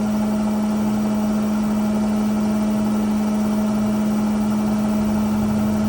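GE front-load washing machine running with a steady, even hum and a constant tone, its motor fitted with a new 6202 bearing after a worn one caused a scraping noise.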